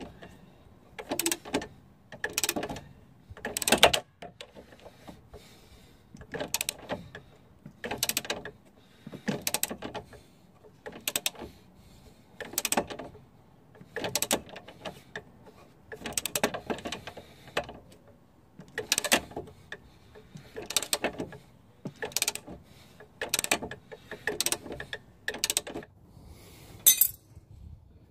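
Ratcheting spanner worked on a bolt at the front hub in short strokes, its pawl clicking in a quick burst on each stroke, about one burst every second and a half. A brief metallic clink comes near the end.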